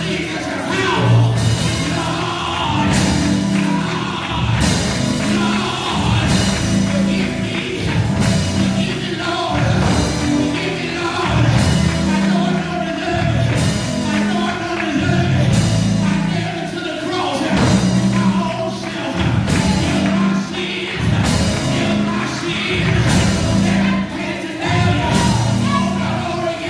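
Live gospel music: a man singing into a microphone over a band, with a heavy bass line and a steady beat.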